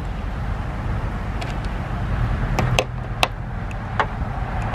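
Small sharp clicks of plastic roof-rail mounting clips being handled and pressed down onto the roof-channel posts, about five in all, most of them in the second half. Under them runs a steady low outdoor rumble.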